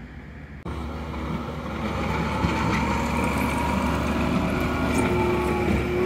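Diesel dump truck engine running as the truck approaches, the sound jumping in abruptly under a second in and growing louder for about two seconds before holding steady.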